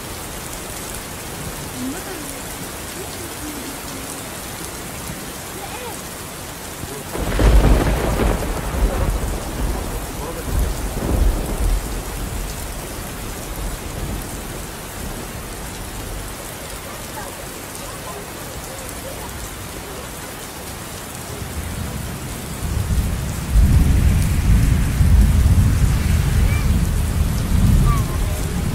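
Heavy rain pouring steadily. Thunder cracks about seven seconds in and rumbles away over several seconds, and a second, longer roll of thunder builds and rumbles near the end.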